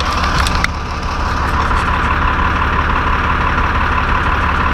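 A heavy engine idling steadily, with a few sharp clicks in the first second.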